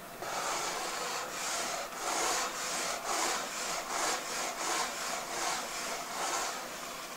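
Felt chalkboard eraser rubbing back and forth across a blackboard: about a dozen scrubbing strokes, roughly two a second, fading out near the end.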